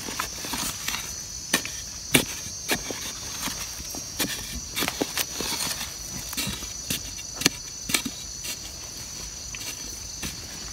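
Irregular knocks and scrapes of a wooden-handled digging bar jabbing and prying into soil while digging out wild yam tubers, about one to two strikes a second. A steady high insect drone runs behind.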